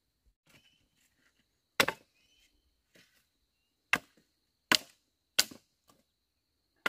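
A machete chopping dry firewood sticks: four sharp chops at uneven intervals, with a few lighter knocks between them.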